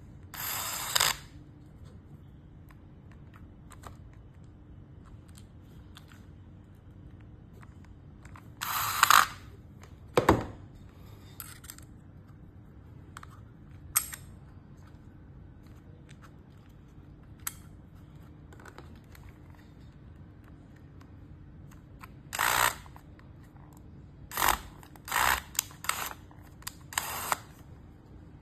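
Hands working on a small remote-control car and its parts with tools: scattered sharp clicks and several short bursts of noise, each under a second, bunched together near the end.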